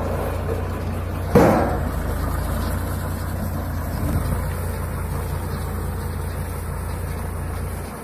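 Tractor engine running steadily, a low rumble, while it pulls a Jawan baler working through straw. A single sudden thump comes about a second and a half in.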